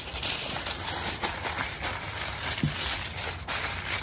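Double layer of aluminium foil being folded tight around a rack of ribs, crinkling and crackling irregularly.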